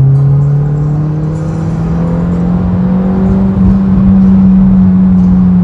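Car engine heard from inside the cabin, accelerating hard through one gear, its pitch rising slowly and evenly throughout.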